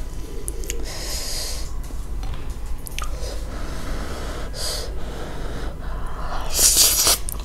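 A person eating very spicy cheesy noodles draws in air in three hissing rushes, the last and loudest near the end.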